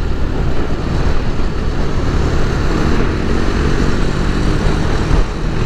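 KTM 390 Duke's single-cylinder engine running steadily at a cruise of about 30 mph, under a steady rush of wind noise.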